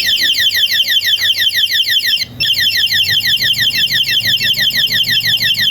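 Motorcycle anti-theft alarm siren sounding: a loud, high-pitched electronic warble of rapid repeating chirps, about seven a second, with a brief break just after two seconds in.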